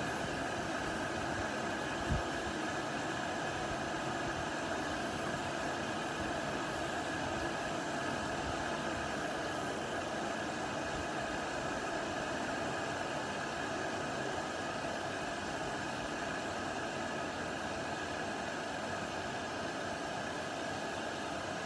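Planet X Jobsworth X2 canister gas stove burner hissing steadily under its pot as the water heats toward the boil, with one faint knock about two seconds in.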